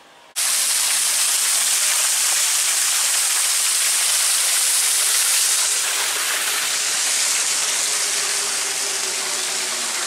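Small waterfall of a park stream cascading over rocks: a steady, loud rush of splashing water that starts suddenly about half a second in.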